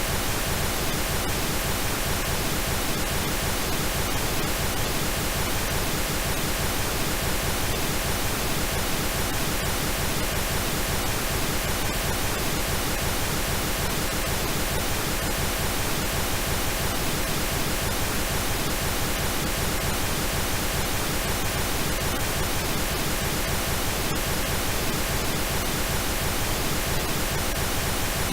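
Steady pink noise: an even, unbroken hiss spread across all pitches, holding one level throughout.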